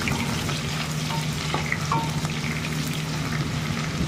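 Sliced onion frying in hot mustard oil in a kadhai: a steady sizzle dotted with small crackles, stirred now and then with a wooden spatula, over a low steady hum.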